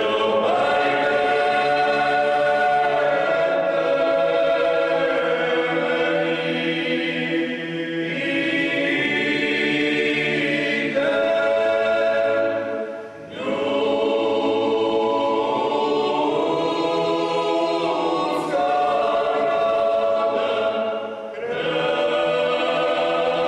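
Choir singing a cappella, slow sustained chords in three long phrases with short breaths between them.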